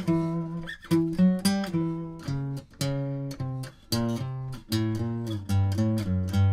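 Steel-string acoustic guitar played solo, plucked notes and chords in quick succession with a moving bass line: jazz-style practice of the half-whole diminished scale over Bm7–E7 changes.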